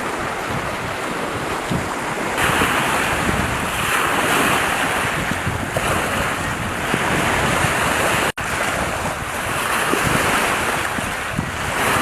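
Rushing noise of wind and river water that swells and eases every second or two, with wind buffeting the microphone. It breaks off for an instant about eight seconds in.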